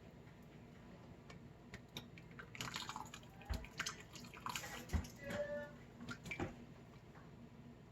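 Thick chowder being poured and ladled into a bowl: faint wet pours and drips with scattered light clinks of a utensil against the dishes, most of them in the middle of the stretch.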